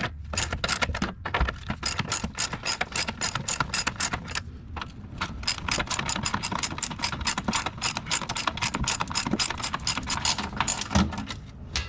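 Hand ratchet wrench clicking quickly and evenly as bolts on the rear spring plate of an air-cooled Porsche 911 are backed out, with a brief pause partway through.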